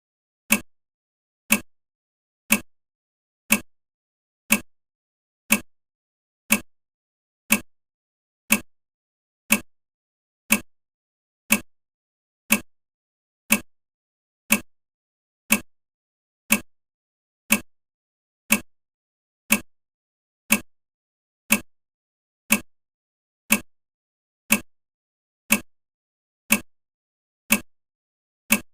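Countdown timer's clock-tick sound: one short, sharp tick every second, evenly spaced.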